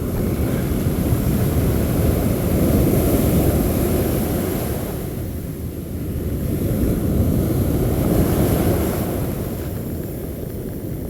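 Wind buffeting the microphone over surf on an open beach: a steady low rumble that swells twice and eases toward the end.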